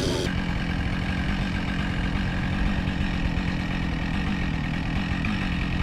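Husqvarna 572XP chainsaw idling steadily.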